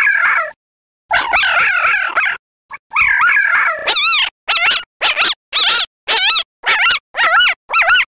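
Black-backed jackals howling and yelping: overlapping wavering calls in the first few seconds, broken by short pauses, then a run of short yelps about two a second.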